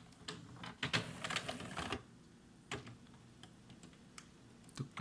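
Irregular dry clicking and clattering: a dense run of clicks in the first two seconds, then scattered single clicks.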